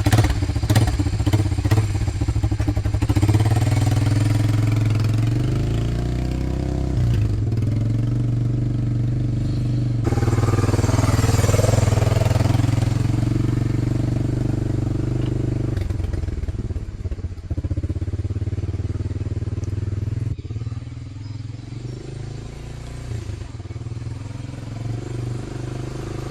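A small vehicle's engine running as it is driven, its note rising and falling now and then. A rushing noise joins it for a few seconds about ten seconds in.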